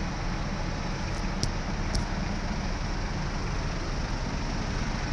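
Heavy diesel engine running steadily at idle, with two brief high clicks about a second and a half and two seconds in.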